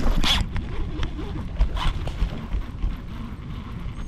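Fishing reel and line zipping during a cast and retrieve: a short whir near the start and a weaker one about two seconds in, over a steady low rumble.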